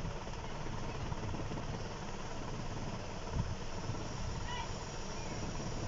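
Steady low hum and whir of an e-rickshaw battery charger running with its cooling fan on, the charger delivering current to the battery.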